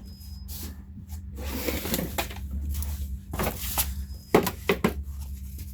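Rustling, then several sharp clicks and knocks of a replacement Jeep door latch and its packaging being handled, over a steady low electrical hum. The loudest click comes a little past the middle.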